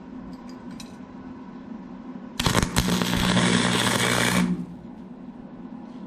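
Forney FC125 flux-core welder striking an arc with a few stuttering crackles about two seconds in, then crackling steadily for about two seconds as a short bead is run. A low electrical hum sits underneath throughout.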